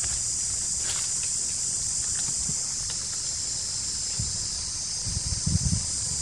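Steady high-pitched drone of insects, with a few low rumbles from about four seconds in.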